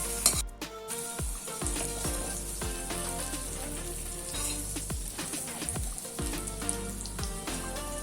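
Oil sizzling in a kadhai as rolled colocasia-leaf slices shallow-fry, with background music with a steady beat over it.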